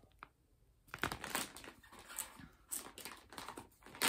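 Clear plastic zip-top bag of wax melts crinkling and rustling as it is handled, with a louder sharp crackle near the end.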